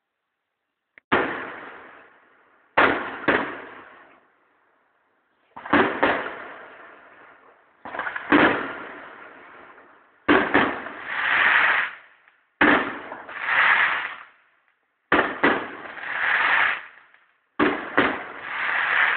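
Aerial fireworks shells bursting one after another, a sharp bang every two to three seconds with the sound trailing off after each. From about halfway, each bang is followed by a noisy swell that rises and fades over a second or so.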